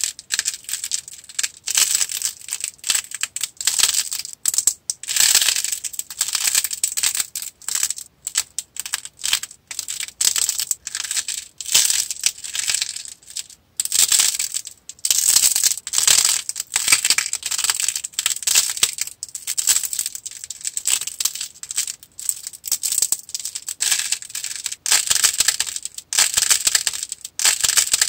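Modelling clay being squeezed, kneaded and pressed apart by hand: a continuous run of irregular crackles and crunches.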